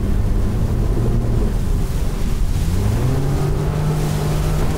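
Outboard motor of a fishing boat running at speed, its pitch rising about halfway through and then holding steady, with wind buffeting the microphone.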